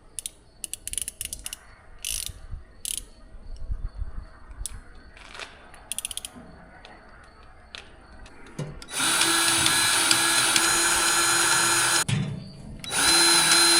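Handheld power tool motor running steadily in two runs, one of about three seconds and a shorter one about a second later, after a stretch of light clicks and knocks of hand work on metal.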